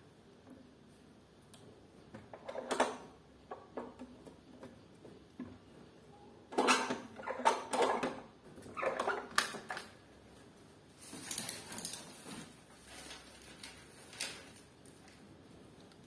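Chrome swing-bar door guard on an aluminium door being handled: scattered metallic clicks and clatters as the bar is moved and latched, with a short scraping noise partway through.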